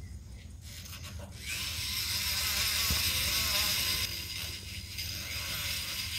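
Equine dental float grinding a horse's cheek teeth, filing down the sharp enamel points. A steady grating sets in about a second and a half in, is loudest for the next couple of seconds, then goes on more softly.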